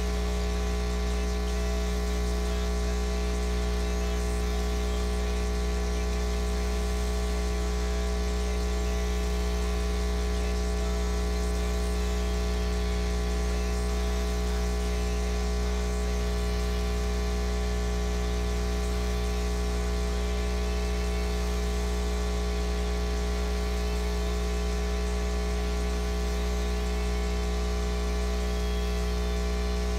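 Steady electrical mains hum with a buzz, holding one pitch and level.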